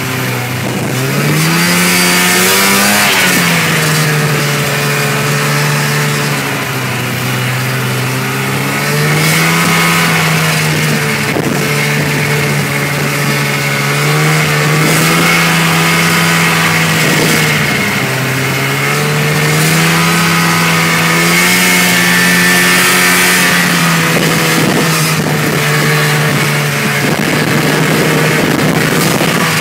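Snowmobile engine running under way on a trail, its pitch climbing and dropping again and again as the throttle is opened and eased.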